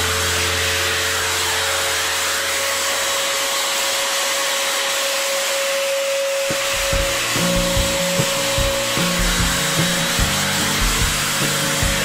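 Dirt Devil Scorpion handheld vacuum running steadily, a constant motor whine with airflow hiss. Background music plays underneath, its low notes turning into a beat about halfway through.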